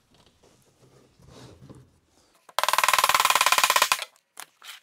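A mallet tapping the two halves of a 3D-printed socket organizer together: after faint handling noise, a loud, very rapid, even run of sharp taps sounds for about a second and a half, like a drum roll.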